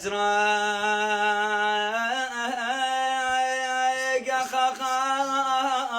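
A man singing without accompaniment, holding long drawn-out notes on a vowel. The pitch steps up about two seconds in, and he breaks into a short wavering ornament around four seconds before holding the note again.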